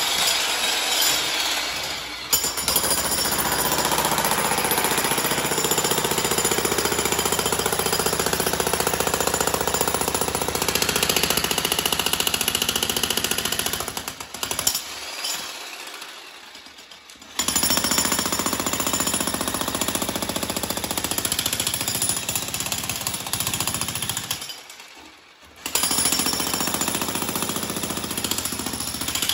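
Bosch Brute electric breaker hammer running, its chisel hammering rapidly into a concrete floor slab and breaking it up. It stops twice, for about three seconds around the middle and for about a second near the end, then starts again.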